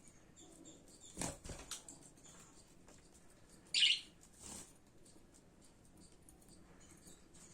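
Budgies fluttering their wings: a short flurry of flaps about a second in, a brief sharp high-pitched burst a little before the four-second mark, and faint scattered taps otherwise.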